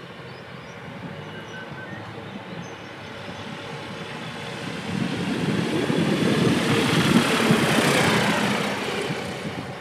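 Single-engine propeller light aircraft passing low overhead on approach to land. The engine and propeller noise grows steadily, is loudest around seven to eight seconds in with its pitch falling as it goes over, then fades away.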